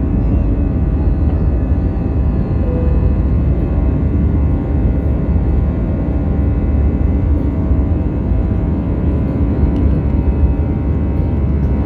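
Airbus A320 cabin noise from a window seat over the wing during the climb after take-off: the engines give a steady, even drone, with a hum of several fixed tones on top.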